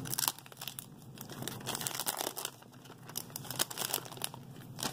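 Clear plastic shrink-wrap being torn and peeled off a phone box, crinkling and crackling in quick irregular bursts.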